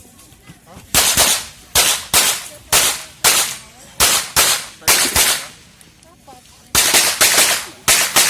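Glock pistol fired rapidly in quick pairs and short strings, about fifteen sharp shots in all, with brief pauses between groups.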